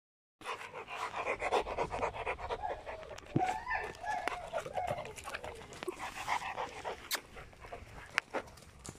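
Presa Canario panting quickly with its mouth open, with a few sharp clicks in the second half.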